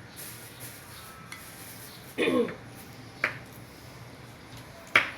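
Kitchen utensils and dishes knocking during food preparation. About two seconds in there is a louder short scrape whose pitch falls, then two sharp clinks a little under two seconds apart.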